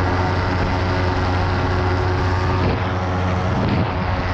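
Engine and propeller of an open-cockpit ultralight aircraft running steadily in cruise flight, heard from on board with wind rushing over the microphone.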